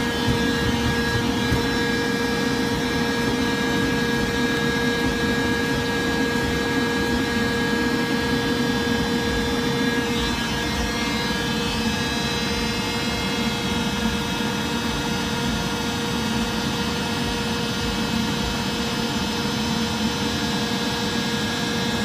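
Press brake's hydraulic pump motor running steadily: a humming drone with several steady tones. One of the tones stops about halfway through.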